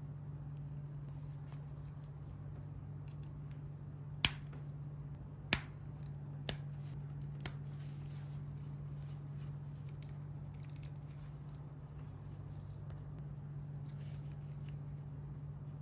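LEGO pieces clicking as they are snapped together and handled: four sharp clicks between about four and seven and a half seconds in, with fainter ticks around them, over a steady low hum.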